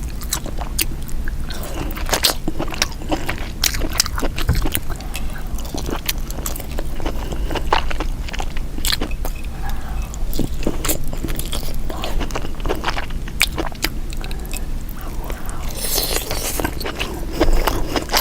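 Close-miked eating of a saucy seafood boil: wet biting and chewing, with many sharp clicks, smacks and crunches throughout and a louder wet, noisy stretch near the end.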